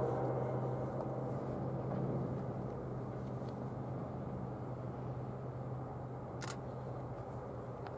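Diesel-electric locomotives of an approaching freight train running with a steady low drone, the tail of the train horn dying away at the very start. A single sharp click about six and a half seconds in.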